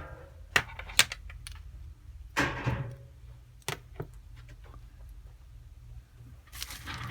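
Small tools and tiny parts clicking and tapping against a phone on a workbench during a repair: a handful of separate sharp clicks, with a short rustle in the middle.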